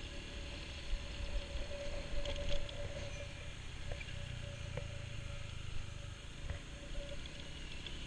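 Motor scooter engine running at a steady cruising pace, with a constant hum and wind rumbling on the microphone.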